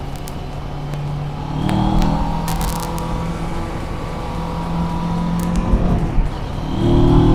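CFMOTO MT650's parallel-twin engine running under way, with the throttle opened about two seconds in and again near the end, over rushing wind noise.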